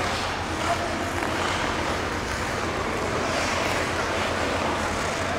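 Steady hiss and low rumble of an indoor ice rink, with skate blades swishing and scraping on the ice in uneven swells.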